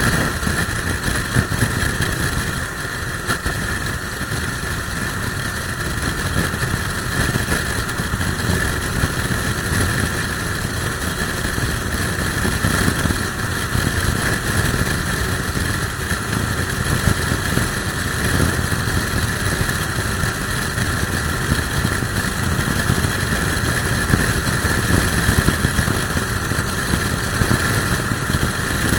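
Motorcycle riding at a steady pace, its engine running steadily under gusting wind noise from a strong crosswind buffeting the microphone.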